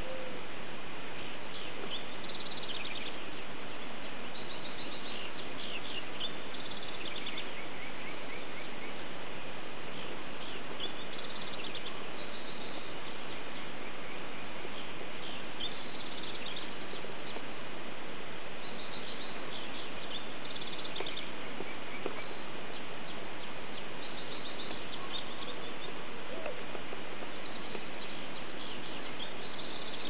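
Songbirds chirping and trilling in short bursts every few seconds, over a steady background hiss.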